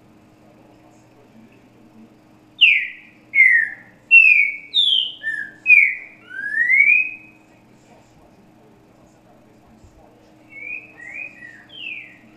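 Green-winged saltator (trinca-ferro) singing the 'grego boca mole com boi' song: a loud phrase of about seven clear whistled notes, each sliding down or up, then a softer, shorter phrase of four notes near the end.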